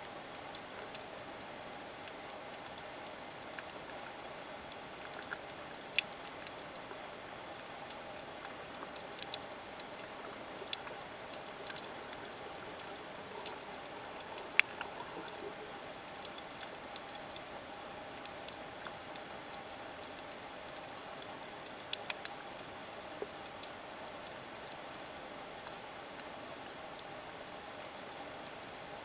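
Underwater coral-reef ambience recorded underwater: a steady hiss with irregular sharp clicks and crackles scattered throughout, one louder snap about halfway through.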